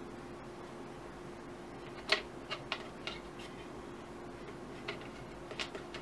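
A handful of light clicks and clinks from the wire bail handle and strainer basket of a can of carburetor parts dip being handled to lift the soaked parts out, the sharpest about two seconds in. A steady hum runs underneath.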